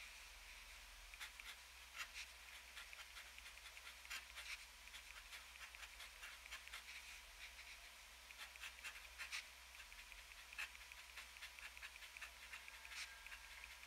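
Faint scratching of a TWSBI ECO fountain pen's extra-fine steel nib writing on paper, in short stop-start strokes with light ticks as the nib touches down and lifts.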